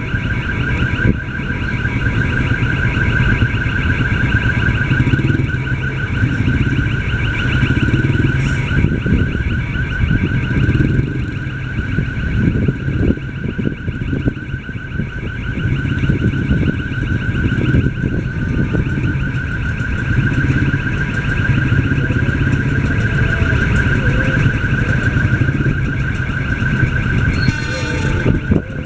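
Railroad level-crossing warning siren sounding without a break, a high, rapidly warbling electronic tone that warns of an approaching train. It is an unusual siren, not the standard crossing alarm. A low rumble runs beneath it.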